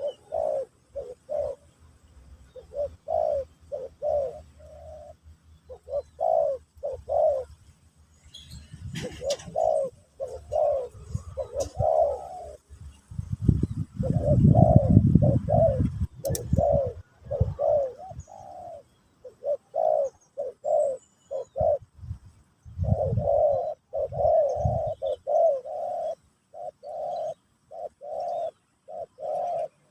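Spotted doves (terkukur) cooing, a long run of short low coos grouped in phrases. A low rumble rises under the coos for a few seconds near the middle, with a sharp click near its end.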